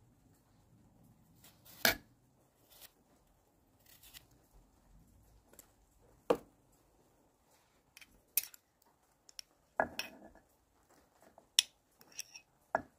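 Kitchen utensils clinking and knocking against dishes and a clay mortar, about ten scattered sharp clicks at irregular intervals, the loudest about two seconds in and just after six seconds.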